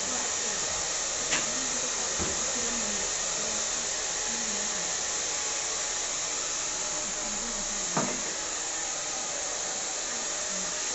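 Handheld electric hair dryer blowing steadily in a barber's hands, a constant rushing hiss, with a few brief clicks about a second in, about two seconds in and again about eight seconds in.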